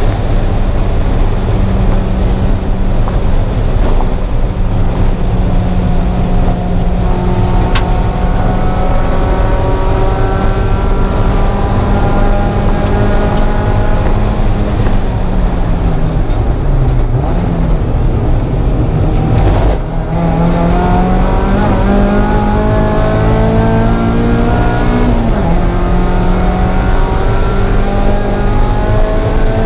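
1994 Mazda Miata's 1.8-litre four-cylinder engine pulling hard on track, its revs climbing steadily and falling briefly at each gear change before climbing again. A constant heavy rumble of wind and road noise lies underneath.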